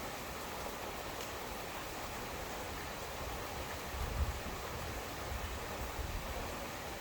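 Steady rain falling, an even hiss, with a brief low rumble about four seconds in.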